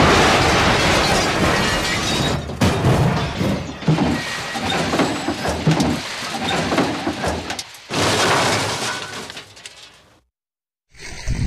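Fast-flowing shallow stream water rushing and splashing over small plastic toy vehicles. It is a loud, dense noise with uneven surges, and cuts out for a moment near the end.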